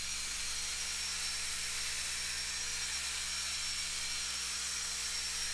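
Cordless drill running at a steady speed, spinning a foam buffing pad against ceramic stove glass to polish a stubborn haze off with compound: an even whine with a thin high tone over a hiss.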